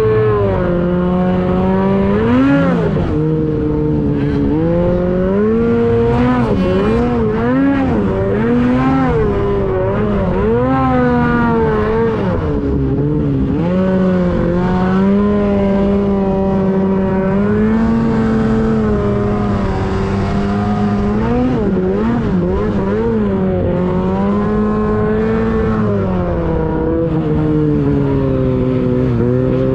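Two-stroke mountain snowmobile engine running under load, its revs rising and falling repeatedly with the throttle.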